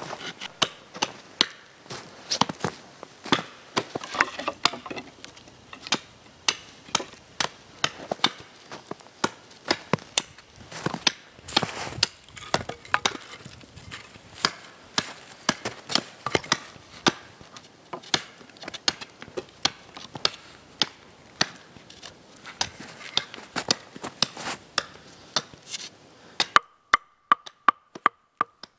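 Wood being chopped by hand: a long run of sharp, irregular wooden blows, roughly one to two a second, quickening near the end.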